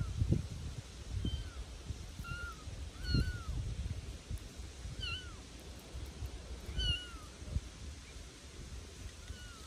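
Bengal kittens mewing: about seven short, high-pitched mews, each a quick rise and fall, one every second or two.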